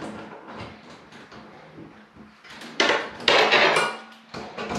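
Knocks and rattles of a shower wall panel being handled against a tiled wall, with a louder scraping noise lasting about a second, about three seconds in, and a sharp knock near the end.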